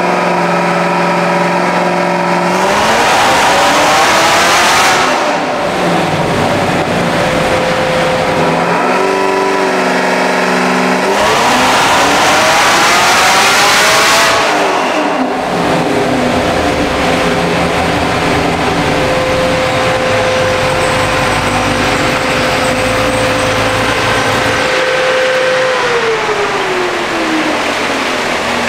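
Supercharged 6.2 L LT4 V8 of a Chevrolet Camaro ZL1 with a 2650 supercharger, run on a hub dynamometer: twice the engine is revved hard, its pitch climbing steeply. Then it holds a longer high-rpm run and winds down near the end.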